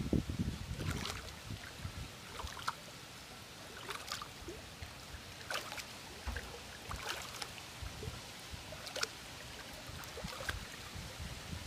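Swimming pool water lapping and trickling in small, irregular splashes, with some wind buffeting the microphone at the start.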